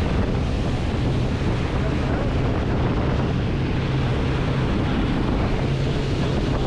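A boat running at speed on open sea: a steady drone from its Suzuki outboard motors under the rush of the wake and wind buffeting the microphone.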